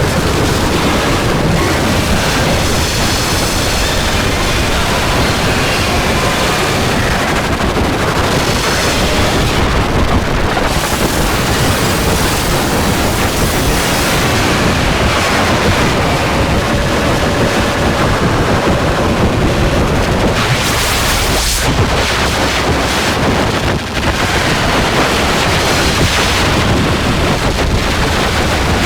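Harsh noise music: a continuous, loud wall of distorted noise across all pitches, its texture shifting, with a brief dropout about 24 seconds in.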